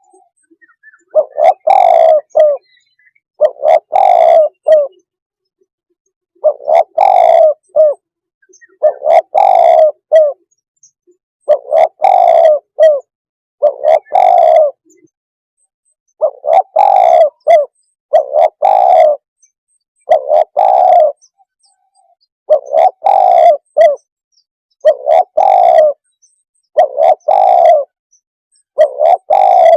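Spotted dove cooing as a decoy call, its call phrase repeated loudly about every two seconds.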